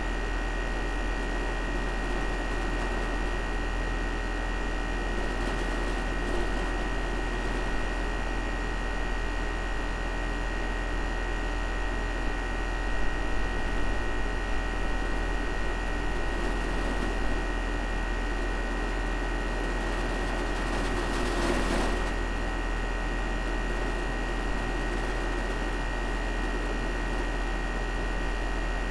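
Carrier outdoor air-conditioning unit running steadily: a constant low hum with a steady high tone over it. About twenty-one seconds in there is a brief swell of louder rushing noise.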